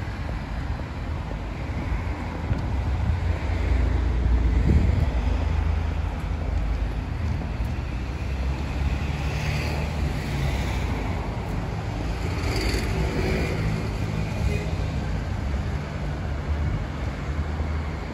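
Road traffic: cars passing on the street alongside over a steady low rumble, louder about four seconds in.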